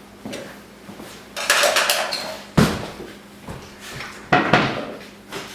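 Hard metal parts and hand tools clinking, scraping, and knocking as a primer valve and its fittings are refitted: a scraping rattle, then two sharp knocks and a few lighter clicks.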